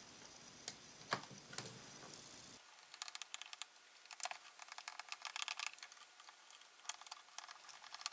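Faint clicks and light ticking of a small Phillips screwdriver working tiny metal screws in a MacBook's battery bay: a few separate clicks in the first two seconds, then a busier run of quick, irregular ticks as the screws are turned out.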